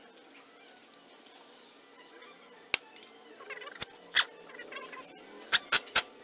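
Scattered sharp metal clinks and clicks from hand tools and an air impact wrench being handled and set against the steering knuckle, with three loud clinks in quick succession near the end.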